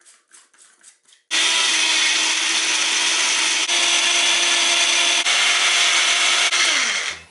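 Small bullet-style personal blender grinding mint and coriander chutney with a little water. A few short clicks come as the blade cup is fitted. About a second in, the motor starts and runs steadily at full speed, its hum stepping up slightly in pitch about halfway, and it winds down and stops near the end.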